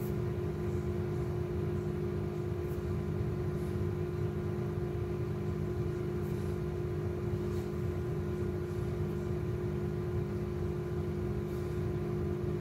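Steady machine hum holding two low tones over a low rumble, with a few faint ticks.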